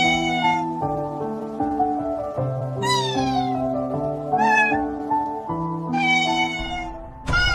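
Kitten meowing again and again, about five high, falling meows spaced evenly, over background music with slow held notes.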